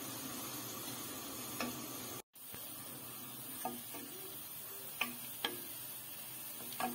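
Sliced onions frying in hot oil in a nonstick kadhai, a steady sizzle while a spatula stirs them, knocking against the pan a few times. The onions are being fried to golden brown. The sound cuts out for a moment about two seconds in.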